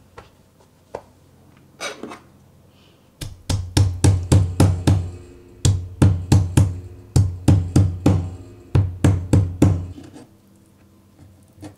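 A metal meat mallet pounding a damp lump of recycled egg-carton paper pulp flat on a wooden cutting board: dull thuds, about three a second in several runs, from about three seconds in until near the end, with a few lighter knocks before.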